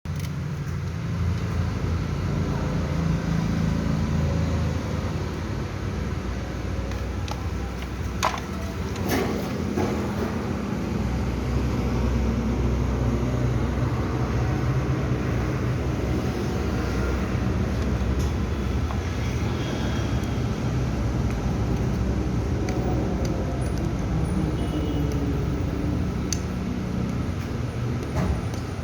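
Steady low mechanical rumble, with a few sharp clicks about eight and nine seconds in and again near the end.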